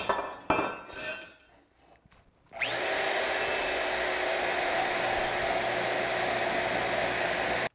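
A bench-mounted power tool grinding metal: it starts about two and a half seconds in, runs steadily with a hissing grind, and cuts off abruptly just before the end.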